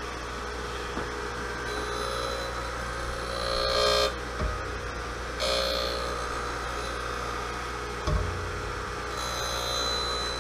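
Harig 6-12 surface grinder running, its wheel grinding dry on A2 tool-steel parallels: a steady motor hum, with a hissing scrape each time the work passes under the wheel, three passes in all. Dull knocks come twice as the hand-cranked table changes direction.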